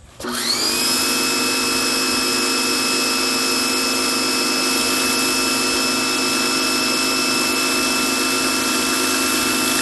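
Electric pressure washer starting up just after the start, its motor and pump whine rising quickly to a steady pitch, then running steadily with the hiss of water spraying through a spinning patio cleaner.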